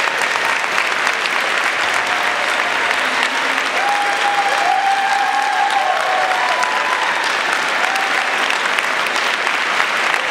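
Audience applauding steadily, with a few cheers rising over it about four to seven seconds in.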